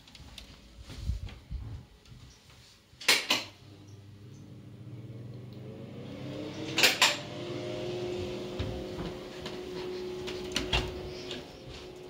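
Doors and latches clicking and knocking as someone walks through a flat, with sharp clicks about three seconds in, around seven seconds and near the end. From about four seconds a low mechanical hum builds and then runs steadily.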